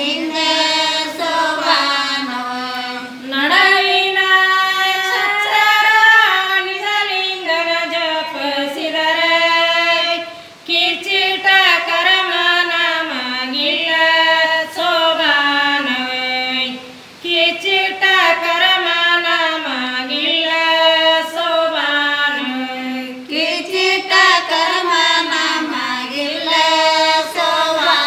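A group of women singing a Kannada sobane pada, a women's folk wedding song, together on one melody with no instruments, pausing briefly between phrases.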